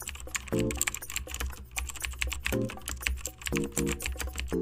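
Computer keyboard typing in quick, irregular keystrokes, over background music with held chords and a steady bass.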